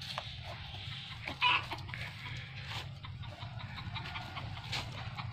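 Chicken clucking, with one loud short call about one and a half seconds in.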